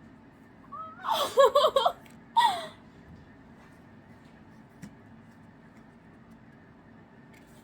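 A woman giggling in a few short, high-pitched bursts over about two seconds, then quiet room tone with one faint click.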